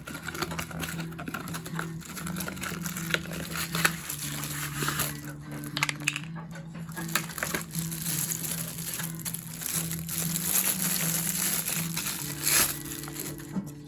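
Plastic parcel packaging crinkling and crackling as it is handled and opened.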